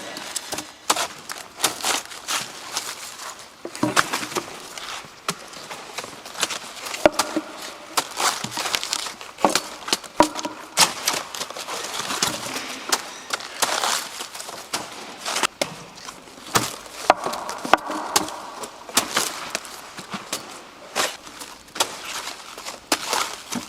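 Busy, irregular crackling and rustling with many sharp clicks and knocks, the sound of cabbage being handled and worked by hand.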